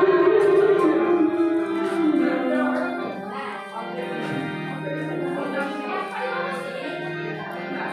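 Devotional singing with musical accompaniment, loudest in the first two seconds with long held notes, then quieter.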